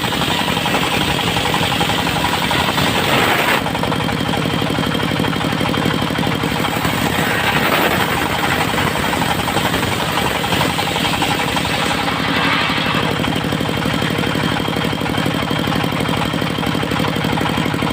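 Diesel engine of a portable circular-saw mill running steadily with an even chugging beat, while the spinning saw blade cuts teak; the blade's hiss is strong for the first three and a half seconds, then eases, coming back briefly twice.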